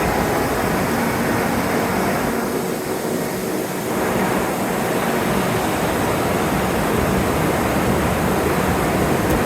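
Heavy downpour of rain: a loud, steady rushing hiss, easing slightly for a moment a few seconds in.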